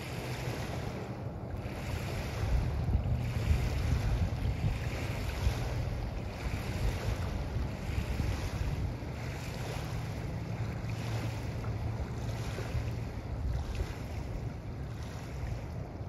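Small wavelets lapping onto a shell beach, washing in about once a second, with a low rumble of wind buffeting the microphone.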